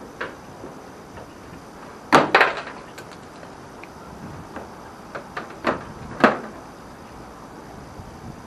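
A few sharp knocks and clunks of hard objects being handled: a loud pair about two seconds in and two more a little after the middle, with smaller taps between.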